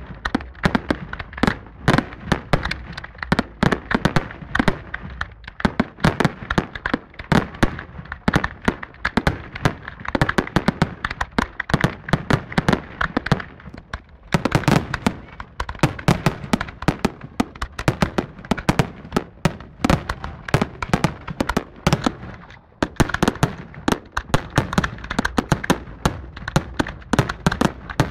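Fireworks display: aerial shells bursting in rapid, dense succession, many sharp bangs a second with crackle between them, the barrage thinning briefly twice.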